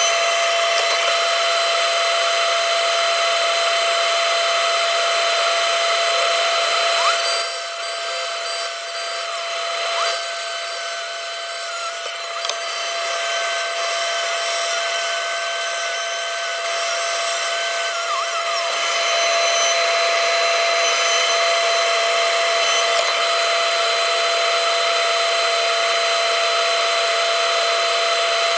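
Takeuchi TB290 compact excavator running, a steady machine whine with fixed tones. From about seven seconds in it drops a little in level and a wavering higher whine rises and falls, then the steady sound returns about nineteen seconds in.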